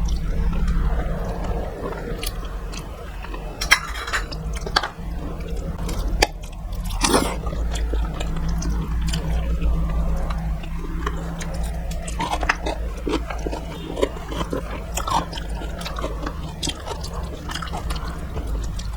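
A person chewing and eating, with scattered short clicks and smacks of the mouth and fingers, over a steady low hum.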